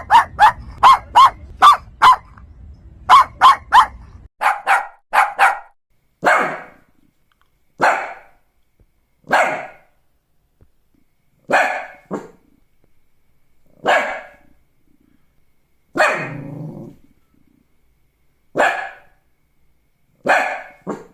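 Shih Tzu barking: quick runs of sharp barks, three or four a second, for the first four seconds, then single barks about every one and a half to two seconds.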